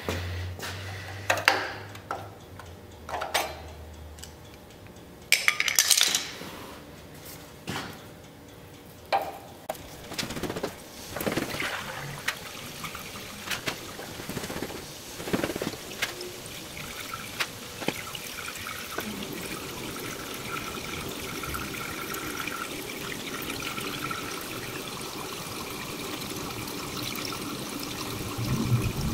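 Scattered metallic clanks and knocks, then liquid pouring steadily into a tank, most likely water going into the car's homemade radiator.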